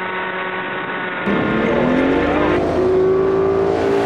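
A motor speeding up: its pitch rises for about a second and a half and then holds steady, with a thin high whine above it.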